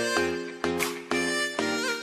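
Background music: a reedy, pitched melody over a steady pulsing beat, the notes changing about every half second.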